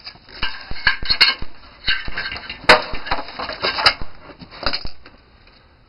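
Hammer knocking on the fittings of a CRT television during dismantling: a run of irregular taps with three sharper strikes, stopping about five seconds in.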